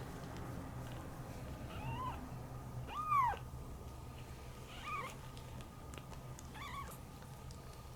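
A very young kitten mewing: four short, high mews, each rising and falling in pitch, the second the loudest.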